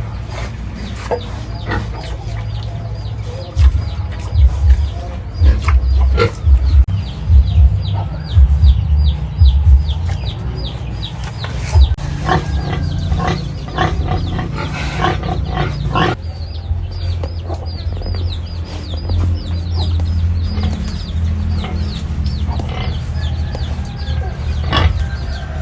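Farm animals, pigs and chickens: a rapid run of short, high, falling peeps goes on throughout, with loud low bursts between about four and ten seconds in.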